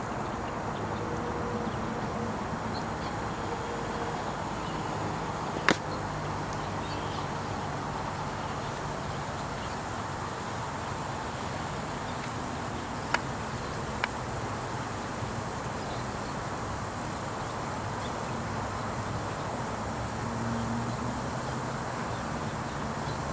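Steady outdoor background noise with a low hum, broken by three sharp clicks: one about six seconds in and two close together about thirteen and fourteen seconds in.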